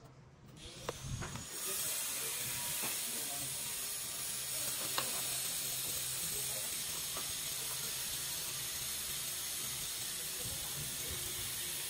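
A steady, even hiss starts abruptly about a second and a half in and holds. Under it are a few faint scrapes of a steel trowel spreading a dry sand-cement mortar bed.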